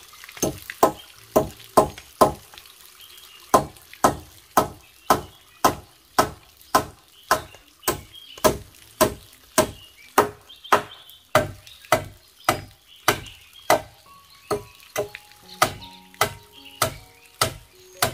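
Hammer blows on a wooden rafter of a pole frame, about two sharp knocks a second with a short break about three seconds in. Background music comes in under the hammering near the end.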